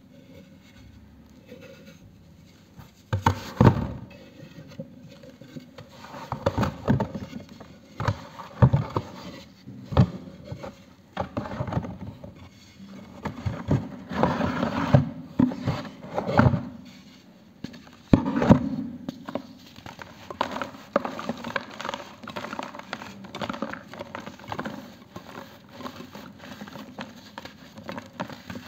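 Dry pure-cement discs being snapped and crushed by hand: sharp cracks and crunches come in clusters from about three seconds in. In the later part they give way to a softer, steady gritty crumbling as the broken fragments are ground between the palms.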